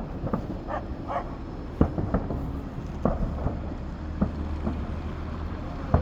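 Fireworks salute: several sharp bangs a second or so apart, the loudest about two seconds in and at the very end, over a steady low rumble.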